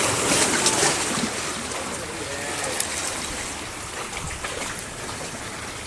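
Sea water washing and splashing against shore rocks, a steady rushing hiss that eases slightly in loudness toward the end.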